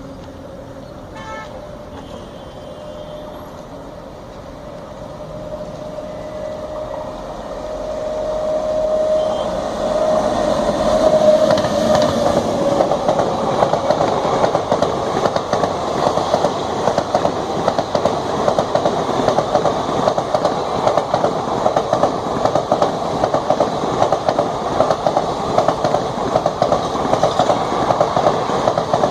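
An Indian Railways WAP7 electric locomotive approaches and passes at speed, a steady tone growing louder for about ten seconds. From about twelve seconds in, the express train's coaches rush past with loud, rapid wheel clatter.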